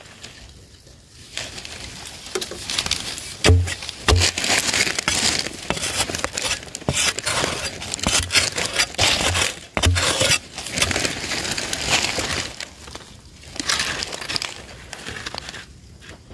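Dry, crumbly soil being scraped and dug out of a small hole by hand and with a digging tool: a crunching, rustling sound broken by a few dull thumps of the tool striking the ground, the loudest about three and a half seconds in.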